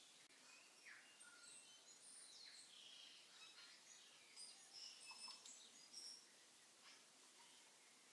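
Near silence: faint room tone with scattered faint high chirps and ticks.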